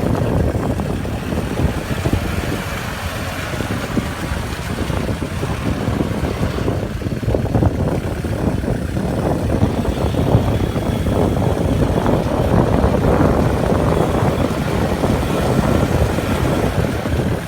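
Kubota L4708 diesel tractor engine running steadily, with wind buffeting the microphone.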